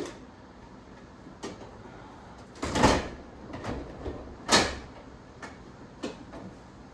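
Plastic side panel of a window air conditioner being handled and pulled in, with two louder sliding knocks, one about three seconds in and one about four and a half seconds in, and a few light clicks between.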